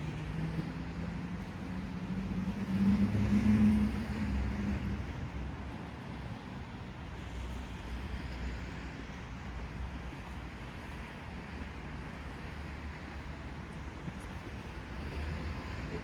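A motor engine passing close by, its hum building to a peak about three to four seconds in and then fading, over a steady low rumble of outdoor city ambience.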